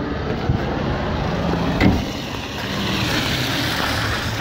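A vehicle engine running steadily, under a rushing hiss that grows louder about two and a half seconds in.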